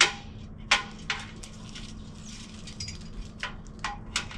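Rigging hardware clinking and knocking, about six sharp clinks spread unevenly, as a sling is set around a tree trunk from a ladder.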